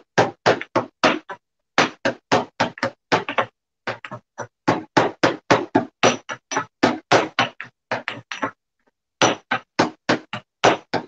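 Pestle pounding galangal and shrimp paste in a mortar to mash them into a paste: quick, regular knocks, about four or five a second, with short pauses about a second and a half in, about three and a half seconds in, and a longer one near the end.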